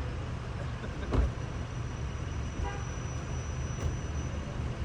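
Roadside traffic: a steady low rumble of vehicles, with a sudden loud thump about a second in and a short, faint horn toot a little later.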